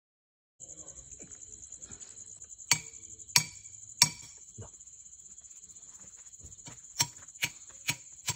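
Crickets chirping steadily, starting about half a second in, with seven sharp, ringing metallic knocks: a thin metal rod being struck to drive it into the ground, three blows about a second apart near the middle and four quicker ones near the end.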